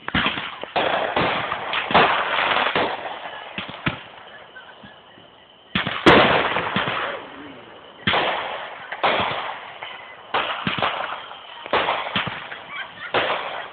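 Aerial fireworks going off in a string of loud booms, each followed by a crackling, echoing tail. The booms briefly let up about four seconds in, then the loudest burst comes about six seconds in and the barrage carries on.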